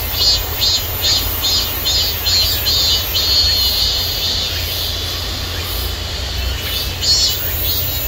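Cicadas singing: a high, rapid pulsing call about two to three times a second that merges into a steady drone a few seconds in, fades, and flares once more near the end. A low steady rumble runs beneath.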